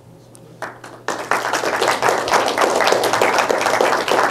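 Audience applauding. One or two single claps come about half a second in, then the whole audience joins in about a second in and keeps clapping.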